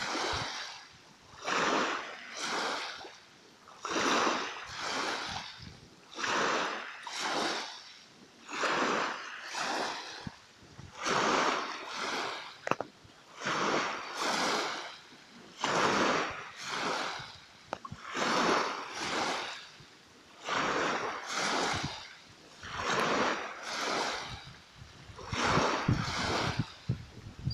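Small sea waves lapping and splashing at the water's edge in an even rhythm, one wash about every two and a half seconds.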